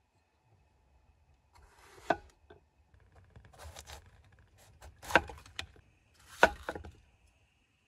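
A cleaver cutting a green bell pepper on a wooden chopping board: a short crunch of the blade going through the pepper, then a sharp knock as it hits the board, three times about a second or more apart, with a few lighter taps between.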